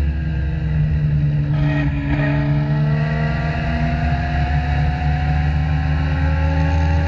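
Legend race car's Yamaha motorcycle-derived inline-four engine running hard under racing load, heard from inside the cockpit. Its pitch dips briefly about two seconds in, then climbs slowly and steadily.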